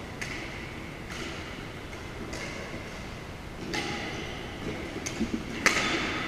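Badminton rackets striking a shuttlecock during a rally: about six sharp hits roughly a second apart, each echoing in a large gym hall, the loudest near the end.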